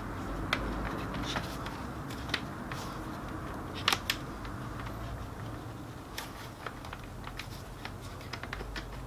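Scattered plastic clicks and light knocks from the housing of a Ricoh MP 4054 copier drum-and-developer unit being handled and unlatched, with a louder double click about four seconds in and a run of small ticks near the end.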